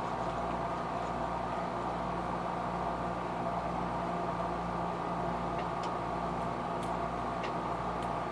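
Steady mechanical hum of a running motor or fan, even and unchanging, with a few faint light ticks in the second half.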